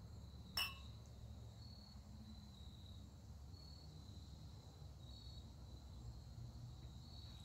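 Two stemmed beer glasses clink once in a toast about half a second in, a short ringing tap. After that, only faint crickets chirping on and off over a low hum.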